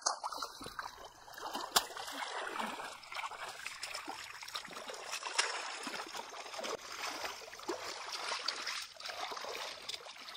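Hands sloshing and splashing through shallow muddy water, with a continuous trickle and many small splashes as the water and mud are groped through by hand. One sharp slap of water stands out about two seconds in.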